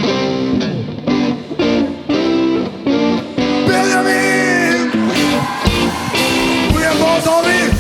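Live jazz band playing, with electric guitar prominent. From about halfway, voices singing with gliding notes join.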